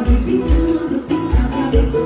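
Live arrocha band music: a Brazilian romantic dance song with a steady kick-drum beat, a melodic line and guitar on top.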